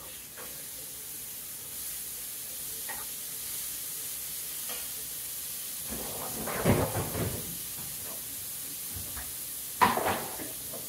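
Sausages sizzling in a pot, a steady hiss, with a short clatter about six seconds in and a sharp knock near the end.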